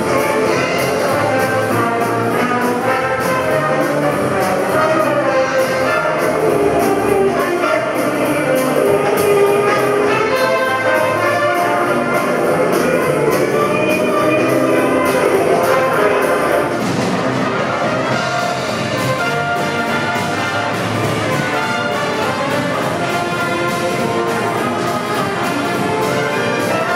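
Big-band jazz played live: a trumpet, trombone and saxophone section over keyboard, bass and drum kit, with cymbals ticking steadily in time. The band eases back slightly about two-thirds of the way through.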